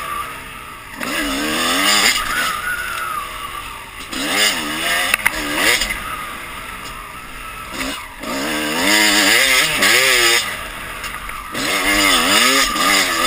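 Dirt bike engine revving up and backing off about five times, its pitch climbing with each burst of throttle and dropping as it eases off, with wind rush on the microphone.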